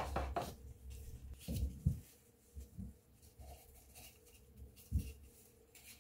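Flour tipped from a plastic measuring cup into a glass mixing bowl: a sharp knock at the start, then a few dull thumps and faint rustling of the powder as the cup is handled over the bowl.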